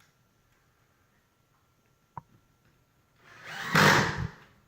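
A drill driving a screw into plywood: a single light click, then about a second of noise near the end that swells and fades as the screw goes in.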